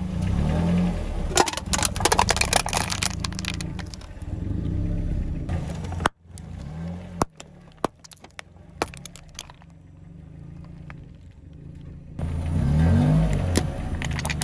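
A car creeping forward, its engine running low with brief revs, as its tyre crushes objects on asphalt. First comes a drink can, with a burst of crunching and cracking. Later a pudding cup squashes, with scattered sharp clicks, and a row of plastic cups crackles under the tyre near the end.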